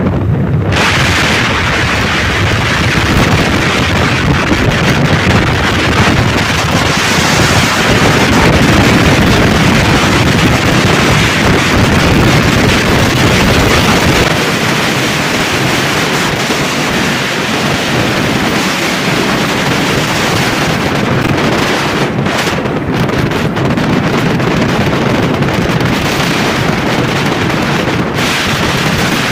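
Heavy wind buffeting the microphone on a motorcycle riding at speed, a loud, steady rush of noise whose deepest rumble thins out about halfway through.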